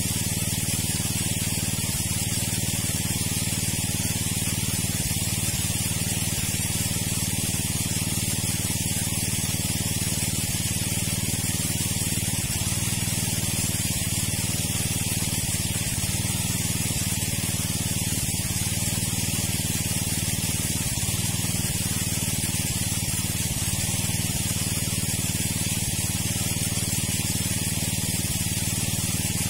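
A steady, unchanging hiss like spraying water, with a low hum beneath it.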